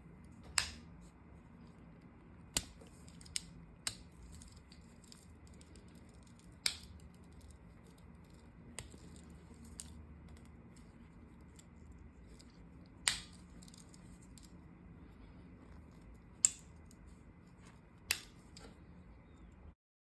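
Victorinox Swiss Champ Swiss Army knife's blades and tools snapping open and shut against their backsprings: about ten sharp metal clicks at uneven intervals, each with a brief ring, with faint scraping ticks between them.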